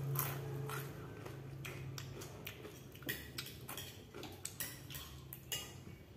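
Metal spoon clinking and scraping against a ceramic bowl of vegetable stew, a series of light, irregular clicks, one ringing briefly near the end. A steady low hum runs underneath.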